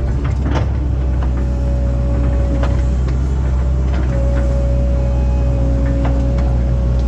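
Link-Belt excavator's diesel engine running steadily under work, with a steady whine over it and a few sharp knocks.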